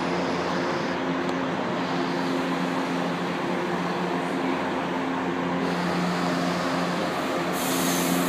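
São Paulo Metro Line 1 train humming at the platform: a steady electric and mechanical drone with a few held low tones. A brief high hiss comes in near the end.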